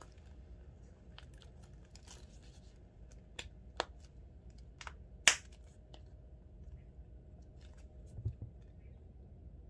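Handling noise from a small grained-calfskin wallet being folded closed: a few sharp light clicks from its metal snaps and zipper hardware, over faint rustling of the leather, the loudest click about five seconds in.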